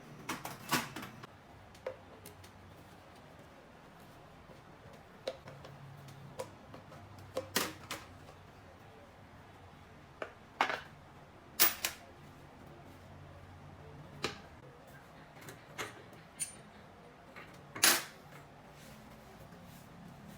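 Sharp clicks and knocks at irregular intervals, about a dozen, from tools and engine parts being handled during work on a scooter engine, over a low steady hum.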